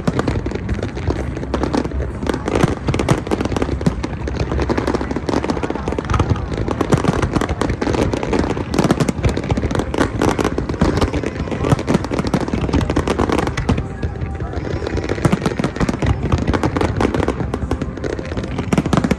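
Dense fireworks barrage: many shells bursting at once in a rapid, unbroken string of bangs and crackles with no pauses.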